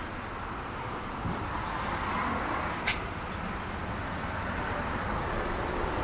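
Steady outdoor background noise of distant road traffic, swelling a little about two seconds in, with a single click near the middle.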